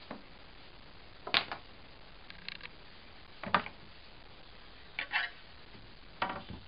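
Handling clatter: a plunge saw and its aluminium guide rail being lifted, moved and set down on a wooden workbench. There are about six short knocks and rattles, the two loudest about one and a half and three and a half seconds in.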